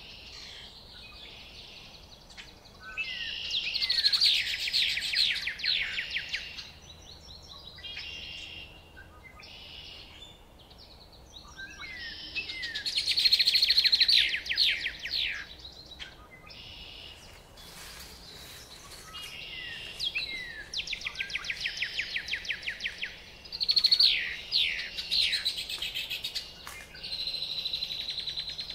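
Birds singing: loud phrases of rapid trilled notes, each lasting a few seconds, recur every several seconds, with softer chirps and calls in between.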